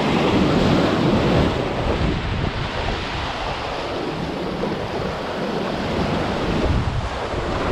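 Surf breaking and washing over the rocks of a jetty, a steady rush of water, with wind buffeting the microphone. The wash swells a little louder in the first second or so.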